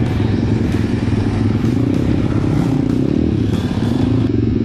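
Single-cylinder four-stroke engine of an M2R pit bike running while riding over grass, its revs rising and easing a little partway through, with the bike's parts rattling over the bumps.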